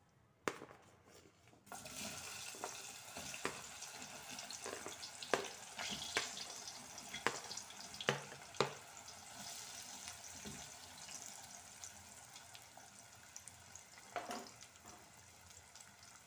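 Raw banana slices dropping into hot oil, which breaks into a sizzle about two seconds in and slowly dies down. A steel spoon clicks against the plate and pot several times while the slices are pushed in.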